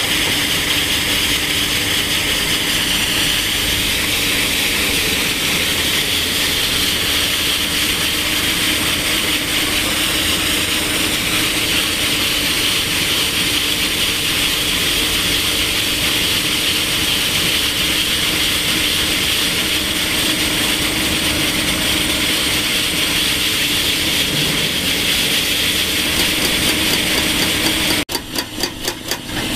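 Excavator-mounted hydraulic rock saw, its large circular blade cutting into bluestone, a steady grinding hiss over a steady low hum. Near the end it cuts off abruptly and gives way to rapid, even hammering.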